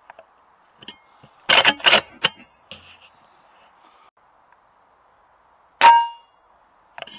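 A shot from an AGT Uragan 2 PCP air rifle about six seconds in: a sharp crack with a short metallic ring. A quick series of mechanical clicks comes about a second and a half in, as the rifle is cycled for the next pellet.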